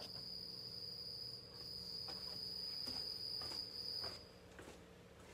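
A cricket chirping indoors in one steady high trill, which stops about four seconds in. A few light taps from handling are heard under it.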